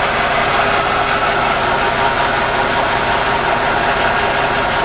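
JET GHB-1340A 13" x 40" gear head lathe running steadily at a low spindle speed, a continuous hum and gear whine from its headstock and drive.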